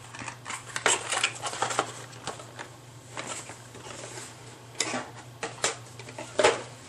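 Hands handling cardboard packaging and small hardware parts on a desk: irregular clicks, taps and rustles, over a faint steady hum.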